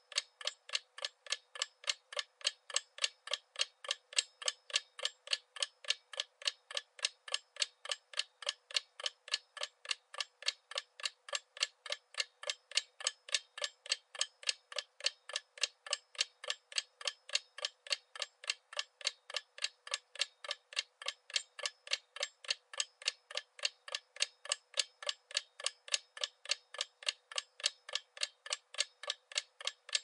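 A clock ticking at a quick, even pace, several ticks a second, with the ticks alternating slightly in strength. The ticks sound thin, with no low end.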